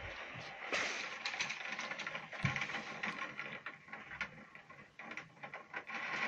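Heavy rain and hail hitting hard surfaces: a dense, irregular rattle of sharp ticks over a steady hiss.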